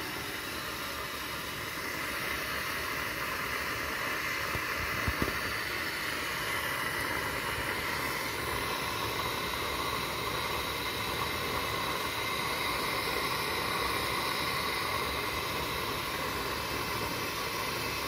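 Pressurized gasoline burner of a 1951 Coleman M1950 stove running with a steady hiss under a pot of water. A couple of faint knocks come about five seconds in.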